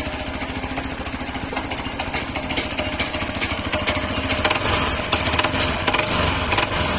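Hero XPulse motorcycle's single-cylinder engine running steadily with a rapid mechanical rattle and ticking from inside the engine, which the mechanic suspects comes from the balancer.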